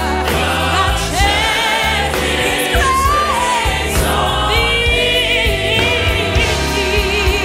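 Background music: a choir singing with instrumental backing.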